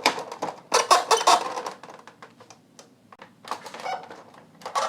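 Plastic cabinet of a portable CD/cassette player being pried open: a rapid run of clicks and snaps as the cover's clips release about a second in, a short lull, then more scattered clicks and rattles.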